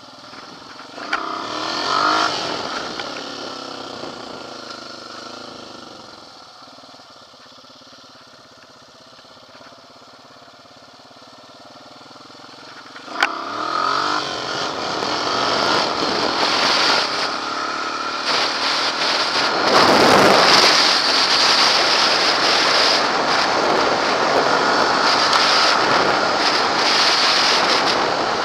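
Honda Rancher 420 ATV's single-cylinder engine through an aftermarket HMF exhaust, riding under way. It revs up about two seconds in, then eases off and runs quieter. After a sharp click about halfway through it pulls hard and stays loud under throttle, with wind rushing over the microphone.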